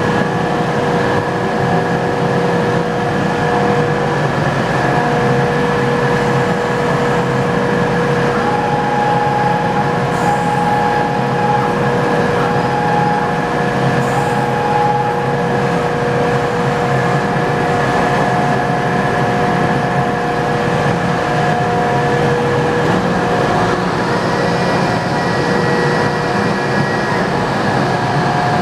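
Mazak M5 CNC lathe running under power: a steady machine hum carrying several steady whining tones, with a higher tone coming and going in short pieces through the middle.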